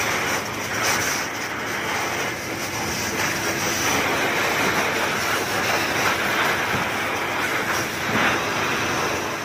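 Steady, loud rushing noise of a fire hose's water stream spraying from the nozzle.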